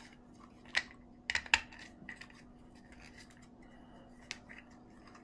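Light clicks and taps of small plastic RC-car parts being handled and pried apart, a sharp tick about a second in, then two close together, with a few fainter ones later.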